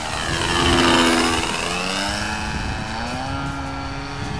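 OS Max 46 AX two-stroke glow engine of a Stinger II RC airplane in a low pass. It is loudest about a second in, and its pitch drops as the plane goes by and climbs away.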